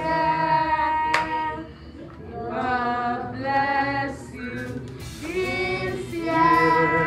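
Several voices singing together, holding long notes in phrases of one to two seconds with short breaks between them.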